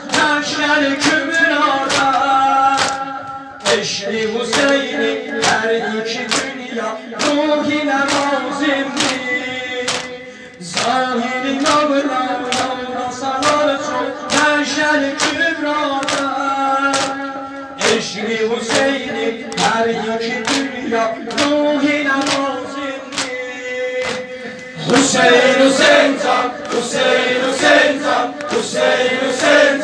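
A group of men singing a mourning lament for Hussein together, over an even beat of hands striking chests about one and a half times a second. The singing grows louder near the end.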